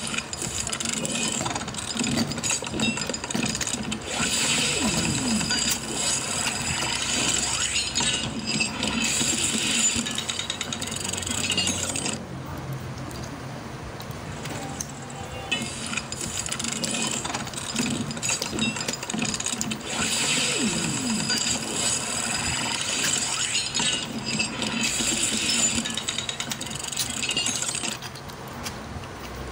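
Plastic joints and parts of a Wheeljack Transformers action figure clicking and ratcheting as they are twisted and folded by hand. There is a long run of dense small clicks, a quieter gap of a few seconds about twelve seconds in, then more clicking, which eases off near the end.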